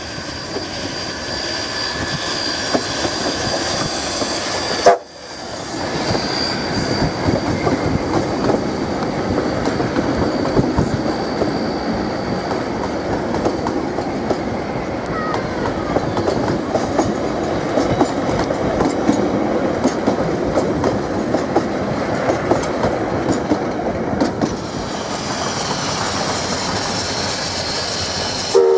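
NZR A class 4-6-2 steam locomotive A428 working past with its train, then its carriages rattling and clicking over the rail joints as they pass. The sound breaks off briefly about five seconds in and changes again near the end.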